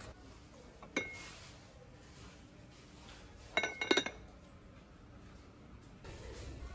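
Ceramic lid of a Korean earthenware pot (ttukbaegi) clinking against the pot as it is handled. There is one light clink about a second in, then a quick cluster of ringing clinks about three and a half seconds in.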